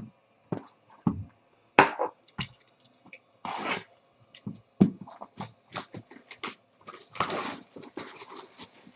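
Trading cards and their packaging being handled: irregular taps, clicks and short rustles, with two longer rustles about three and a half seconds in and near the end.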